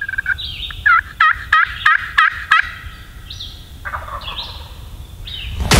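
Wild turkey calling: a run of six sharp, evenly spaced notes, followed by a few softer scattered calls over a low rumble. A sudden loud hit comes at the very end.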